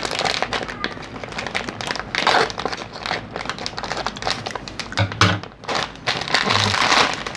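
Crinkling plastic snack packaging: a clear plastic bag of Sayang Mie noodle-snack packets being handled and rustled as one packet is pulled out.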